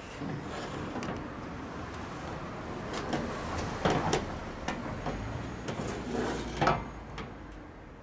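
Handling noise of a scroll compressor's steel shell being tipped and shifted on a steel surface, with scrapes and a few sharp knocks, the loudest about four seconds in and near seven seconds, as a plastic measuring jug of drained oil is handled beside it.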